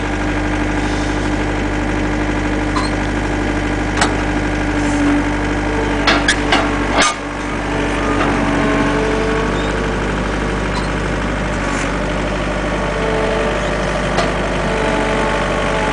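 Takeuchi compact track loader's diesel engine running steadily as it works its pallet forks to lift a heavy stack of green lumber; its note shifts about halfway through. A few sharp knocks around four and six seconds in.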